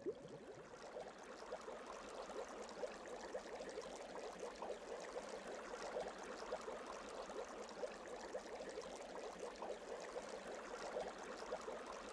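Faint fizzing of bubbling water, a steady crackle of many tiny pops.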